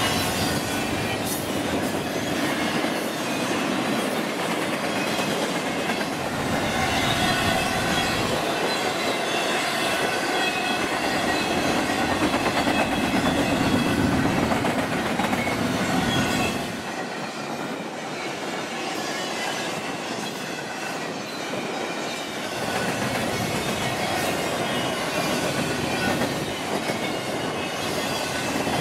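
Freight train cars rolling past at speed: steady wheel-on-rail rumble with clickety-clack over the rail joints and thin wheel squeal. The sound drops suddenly about two-thirds of the way through and picks up again a few seconds later.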